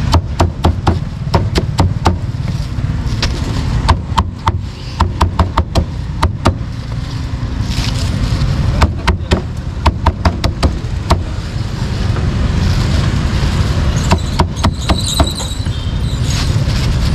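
Cleaver chopping cooked meat on a chopping board in quick runs of sharp strikes, with short pauses between runs, over a steady low rumble of street traffic.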